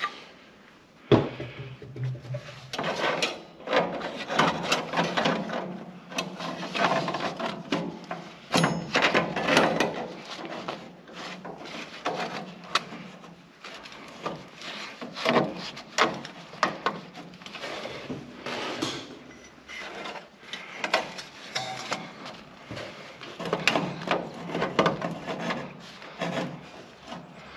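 Stainless steel flue pipe sections being worked together by hand: irregular scraping, rubbing and clicking of metal on metal as a section is twisted and pushed onto the next. There is a sharp knock about a second in.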